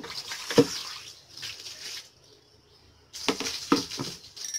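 Soapy water being tipped out of a plastic basin and splashing onto a stone floor, with sharp knocks of the plastic tub against the floor about half a second in and twice more near the end.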